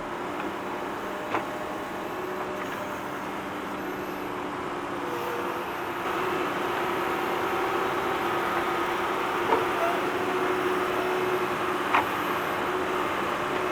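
Tractor engine running steadily while digging, with a few sharp metallic knocks; it gets louder about six seconds in.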